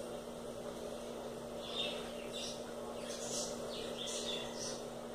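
Soft, breathy swishes of sewing thread being pulled through felt as a stuffed plush heart is hand-stitched closed, several strokes from about two seconds in, over a steady low hum.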